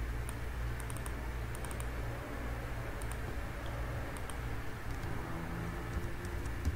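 Computer keyboard keys typed in a few short bursts of light clicks, over a steady low hum.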